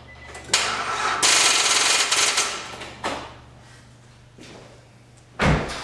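A 2005 Nissan Altima's starter clicking rapidly for about two seconds as the key is turned, with a short second burst: the battery cannot supply enough cold cranking amps and its voltage sags under the starter's load, which the owner puts down to a probable bad cell. A heavy thump near the end.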